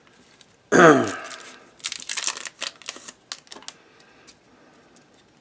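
A brief vocal sound falling in pitch about a second in, then about two seconds of crinkling and tearing from a foil trading-card pack wrapper being ripped open and handled.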